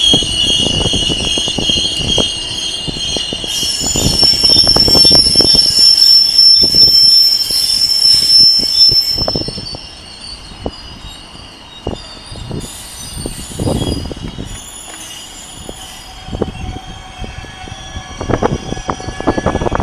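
Container freight train's wagons rolling past, the wheels squealing with steady high tones over a run of irregular wheel knocks. The squeal and the overall sound drop sharply a little before halfway, leaving quieter knocking.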